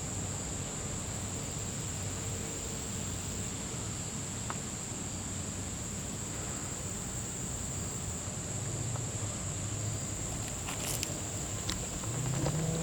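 Outdoor ambience: a steady high-pitched insect chorus over a low rumble, with a low rising tone coming in near the end.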